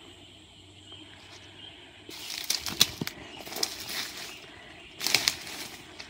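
Footsteps crunching and rustling through dry leaf litter and brushing through undergrowth, starting about two seconds in as irregular crackles and snaps, with a louder burst of rustling about five seconds in.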